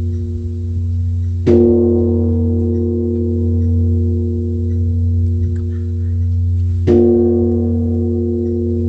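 Large Korean Buddhist temple bronze bell (beomjong) struck twice with its wooden log, about five and a half seconds apart; each strike sets off a deep, long ringing tone that pulses slowly and carries on into the next.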